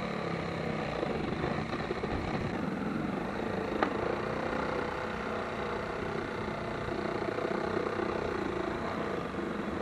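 A motor running steadily for about ten seconds, starting and stopping abruptly, with one sharp click about four seconds in.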